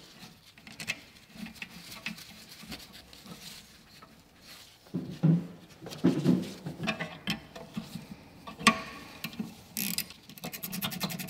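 A new brake caliper handled and slid into place over the rear brake disc: light scraping and rubbing of metal parts, a few knocks about halfway through, and a sharp click. Near the end comes a rapid run of clicks as a ring spanner is put to the caliper bolt.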